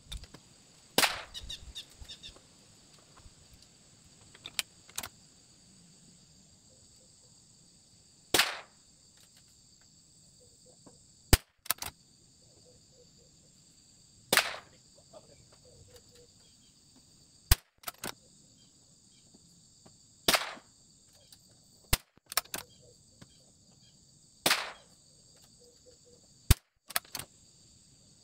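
Bergara BMR bolt-action .22LR rifle firing single shots, a sharp crack every several seconds, with light clicks between some shots as the bolt is worked.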